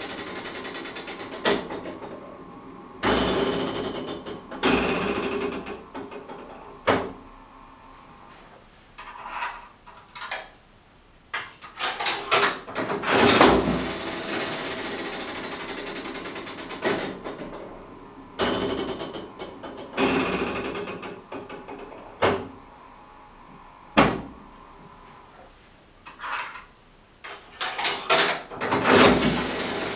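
A restored 1960 Wulff 'Regina' one-arm bandit being played, its side handle pulled again and again. Each pull sets off a second or two of mechanical whirring and clatter as the reels spin, with sharp clicks and knocks in between.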